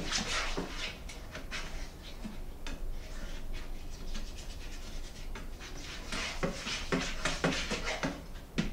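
A utensil stirring and scraping an egg in a frying pan, making irregular scrapes and taps that come thicker toward the end.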